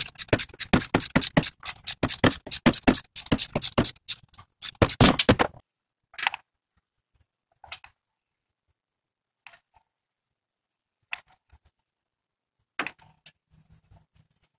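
Jack under the engine being cranked to raise it: a fast, even run of ratcheting clicks, about six a second, for some five seconds, then a few single clicks.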